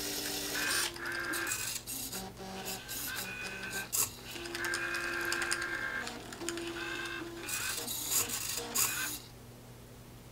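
Small motors of a homemade Turing machine whirring in short bursts with clicks as it erases, reads and writes on its paper tape with a marker pen. It falls quiet about nine seconds in, as the machine halts after its final step.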